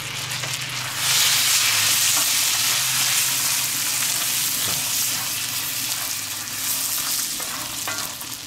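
Walnuts sizzling in bubbling butter-and-sugar caramel in a cast-iron skillet while a wooden spoon stirs them. The sizzle grows louder about a second in and eases a little toward the end.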